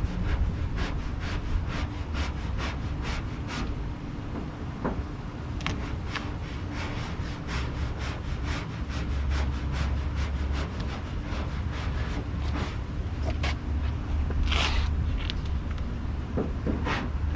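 A squeegee scraping over vinyl wrap on a truck body in quick short strokes, several a second at first and then more scattered, with a louder stroke near the end. A steady low rumble runs underneath.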